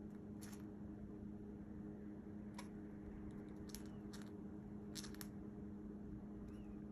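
Cockatiel hiccuping: short, sharp little hics at irregular intervals, about six in all, two of them close together a little after the middle. They sit over a steady low hum.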